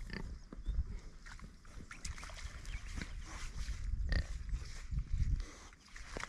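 Kune Kune pig grunting softly as it roots and grazes in the grass, with intermittent low rumbles.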